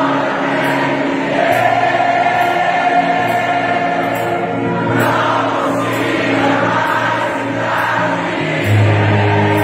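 Background choral music: a choir singing long-held chords over a low bass note, moving to a new chord about a second and a half in and again near the end.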